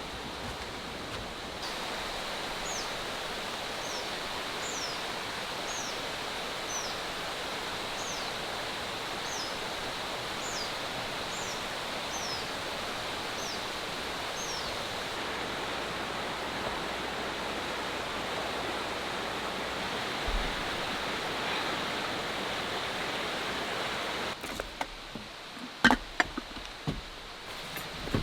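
Forest ambience: a steady rushing noise with a small bird repeating short, high, downward-sliding chirps about once a second for some twelve seconds. Near the end the rushing drops away and a few sharp clicks and knocks follow.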